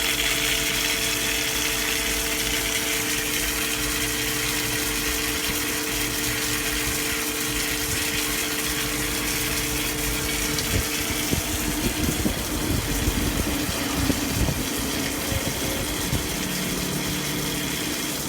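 CNC lathe running with coolant spraying and splashing, its motor giving a steady hum. About halfway through one hum tone drops out and irregular crackling and clatter start, typical of the tool cutting and chips falling.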